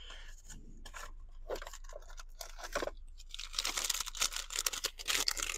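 Paper receipt rustling and crinkling as it is handled, with scattered small clicks, getting busier and louder about three and a half seconds in.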